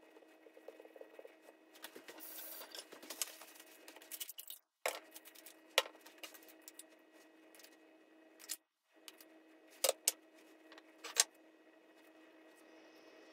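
Quiet hand-work during sushi making: a stretch of rustling, then a few sharp clicks and taps of utensils and dishes on the counter. A steady low hum sits underneath, and the sound cuts out completely twice for a moment.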